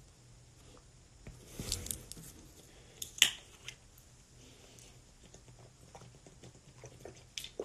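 Plastic water bottle being opened and drunk from: a brief rustle of handling, then one sharp crack about three seconds in as the cap is twisted open, followed by faint small sounds of drinking.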